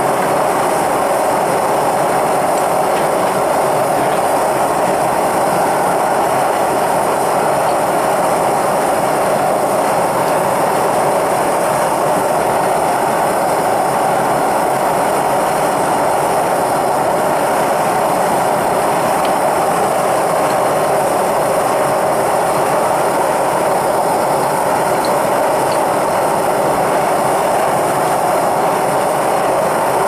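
Propane burner of a small melting furnace firing steadily: a loud, even rushing noise that does not change, with the crucible of sterling silver inside held at melting heat.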